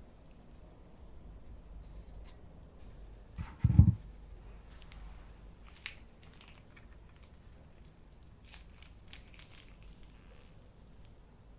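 Slime being handled, with faint scattered crackles and clicks and one loud low thump a little under four seconds in.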